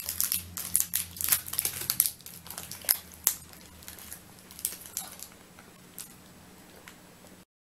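Plastic snack-bar wrapper crinkling as it is handled and peeled open. The crinkles are dense and fast for the first three seconds, thin out to a few scattered ones, and then cut off suddenly near the end.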